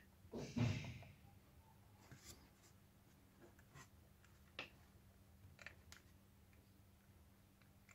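Small plastic RC car axle and rubber-tyred wheels being handled. A brief rubbing rustle comes about half a second in, then a few faint, scattered clicks of the plastic parts.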